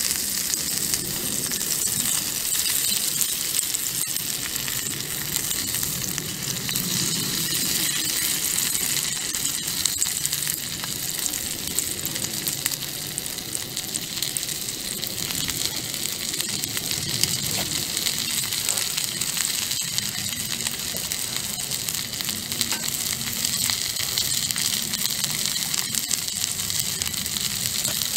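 Sausages frying in oil in a cast-iron skillet over a small wood-fired stove: a steady sizzle with scattered small pops.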